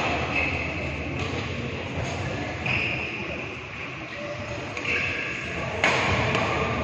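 Badminton rally: sharp racket strikes on the shuttlecock, the loudest about six seconds in, with short high squeaks of shoes on the court and low chatter in the background.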